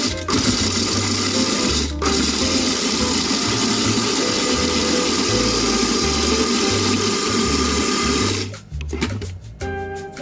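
Magimix food processor motor running at speed, its blade chopping wild garlic leaves into pesto, with a brief break about two seconds in; it stops near the end. Background music plays under it.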